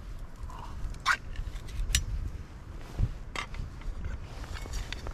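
Camp cooking gear being handled on a small metal table: a few sharp clicks and light clinks of a lid and a tin can being picked up and set down, over a steady low rumble.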